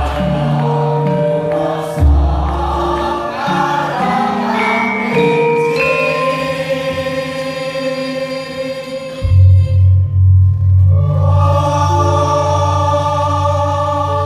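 Javanese gamelan music with voices singing together. A deep gong stroke comes about two seconds in, and another past the middle hums on with a pulsing beat.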